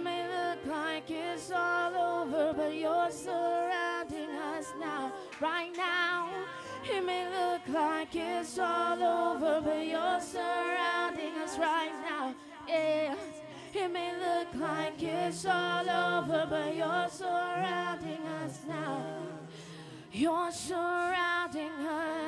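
Worship singers singing a slow, flowing improvised melody with vibrato over held low keyboard chords that change every few seconds.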